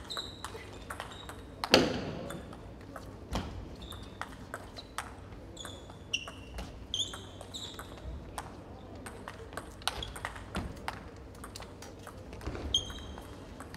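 Table tennis rally: the plastic ball clicks off the rackets and pings on the table in a quick back-and-forth series of hits and bounces, the loudest hit about two seconds in.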